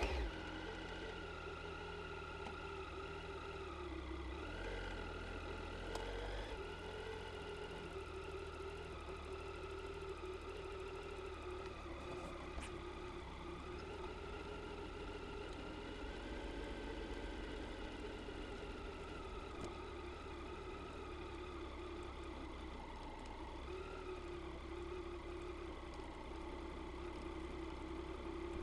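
Triumph Tiger 800 XC's three-cylinder engine running at low revs as the bike rolls slowly down a rough track, its pitch rising and dipping slightly with small throttle changes.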